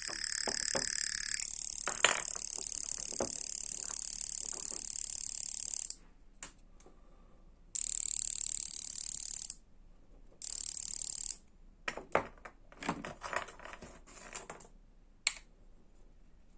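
Small electric motor of a homemade Tipe-X toy motorbike running with a rattling, ratchet-like buzz from its mock exhaust, meant to imitate a motorbike engine. It runs for about six seconds, stops, then starts again in two short bursts. Scattered clicks and taps follow near the end.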